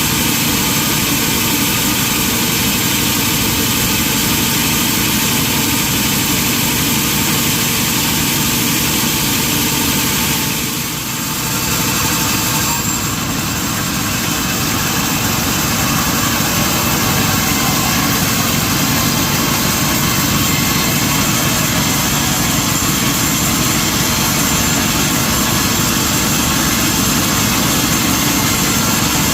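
Sawmill machinery running steadily: a loud, even mechanical noise, briefly easing off about eleven seconds in.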